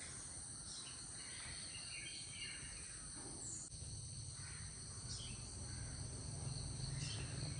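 Outdoor ambience of a steady insect chorus shrilling in several high bands, with scattered short bird chirps over it. A low rumble grows louder from about halfway.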